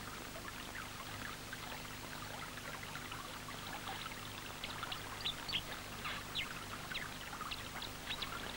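River water running and trickling steadily, with scattered small high splashes and trickles, more of them from about four seconds in.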